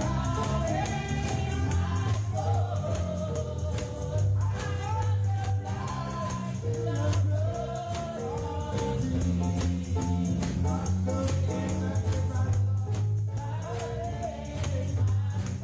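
Gospel worship music: voices singing a slow chorus over a steady bass line, with a tambourine shaken in rhythm throughout.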